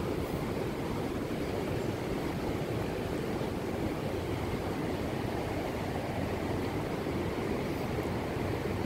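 Steady rushing of heavy floodwater pouring over the spillway, a continuous even roar with no breaks.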